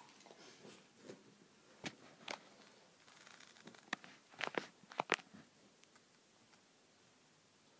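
Scattered short rustles and scuffs from a dog shifting on a blanket-covered couch close to the microphone, busiest around four to five seconds in.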